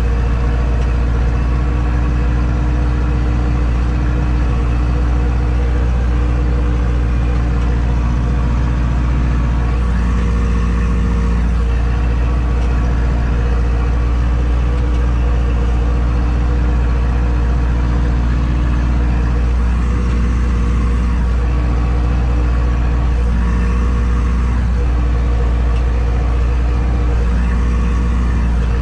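Zetor tractor's diesel engine heard from inside the cab, running steadily under load while pulling a reversible plough, with a slight shift in its note now and then.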